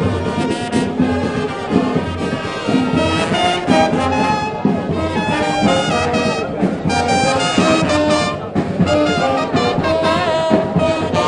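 Brass band music: several brass instruments playing a melody of held notes.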